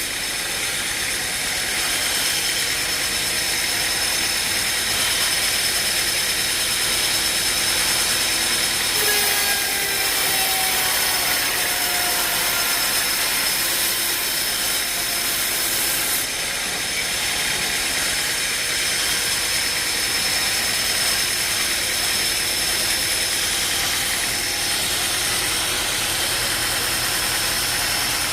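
Engine-driven machinery running steadily: a dense mechanical din with a constant high whine over it, and a few faint falling tones about ten seconds in.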